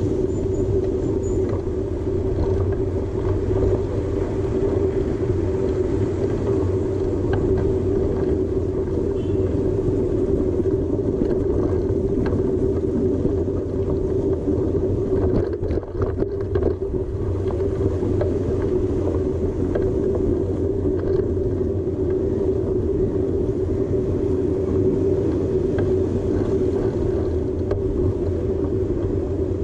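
Steady engine drone and road rumble of a moving vehicle, heard from a camera mounted on it.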